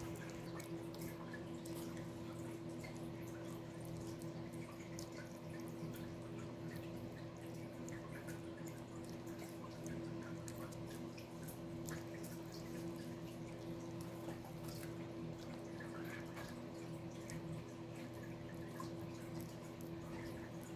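Pomeranian puppy lapping soft food off a spoon: quick, irregular small wet licking clicks, over a steady low hum.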